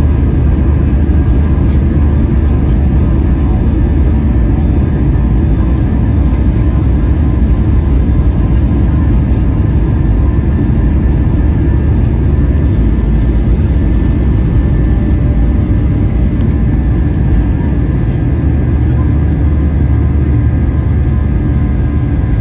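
Inside the cabin of a Boeing 737-800 on its takeoff roll: the CFM56 engines run at takeoff thrust, a loud, steady cabin noise over a deep rumble from the runway. The deepest rumble fades about eighteen seconds in as the aircraft lifts off.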